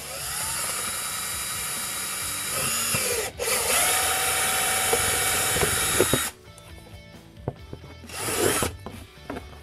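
Cordless drill boring a hole through the top edge of a Razor 360's plastic seat, spinning up with a rising whine. It runs for about three seconds, stops for a moment, runs about three seconds more, then stops. A short burst follows about two seconds before the end.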